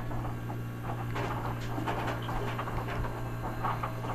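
Close handling noise as a small live bluegill is held and hooked for bait: irregular soft rustles and small clicks, over a steady low hum.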